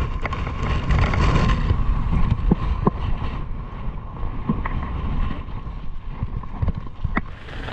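Strong wind buffeting the microphone in a steady low rumble, with scattered sharp clicks and rattles from a mountain bike riding over loose, rocky trail.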